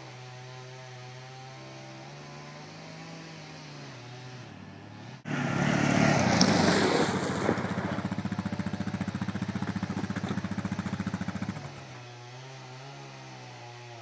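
A steady engine hum with a slowly wavering pitch. After an abrupt cut, a loud burst of noise gives way to an ATV engine running with a fast, even pulse. Another cut brings back the steady hum a couple of seconds before the end.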